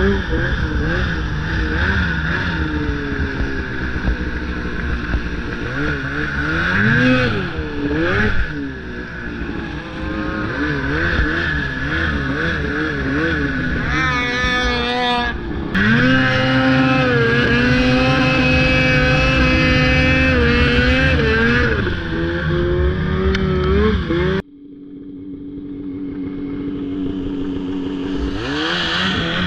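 Snowmobile engine under way across snow, revving up and down as the throttle is worked. About 24 seconds in the throttle comes off sharply and the engine drops to a low idle, then it revs back up near the end.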